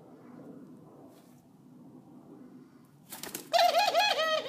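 Fledgling mourning dove calling: a loud, quick run of about six short squeaky notes, each rising and falling, starting about three and a half seconds in, just after a brief burst of noise.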